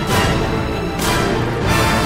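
Music with heavy accented hits about once a second, each with a bright, crash-like top.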